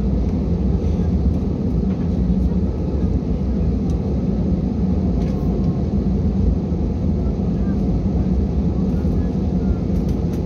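Jet airliner taxiing, heard from inside the passenger cabin: a steady low engine and cabin rumble that holds even throughout.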